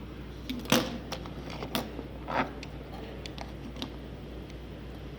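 A few sharp clicks and taps of small plastic and metal phone parts and tools being handled during a smartphone teardown, the loudest about a second in, fewer and fainter towards the end.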